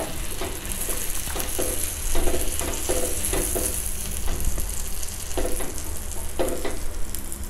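Butter sizzling steadily on a hot iron tawa as a burger bun is pressed down into it to toast.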